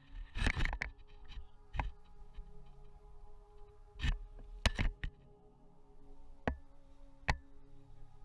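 Quiet ambient background music with steady held tones, broken by several sharp, irregular clicks or cracks.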